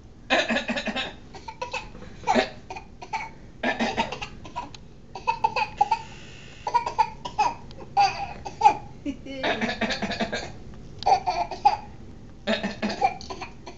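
A baby coughing on command, trading deliberate coughs with a grandfather, with laughter between them. Short bursts come again and again, about every one to two seconds.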